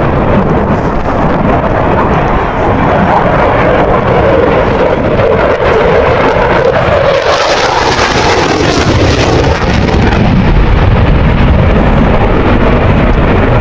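Dassault Rafale C fighter's twin Snecma M88 turbofan jet engines, loud and continuous as the jet flies a tight turn past. The noise turns harsher and more hissing from about seven to nine seconds in, as the jet passes closest.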